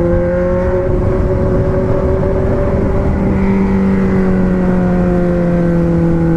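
Four-cylinder car engine running under steady load, its note drifting slightly up and then back down in pitch, over a low rumble of road noise.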